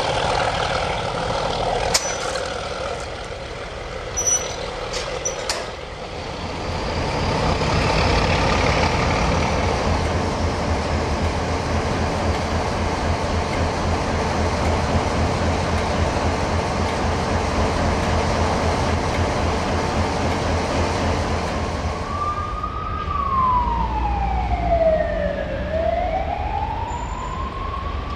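Diesel locomotive engine running with a heavy low rumble that builds about six seconds in and then holds steady. Near the end a siren wails over it, sliding slowly down in pitch and back up again.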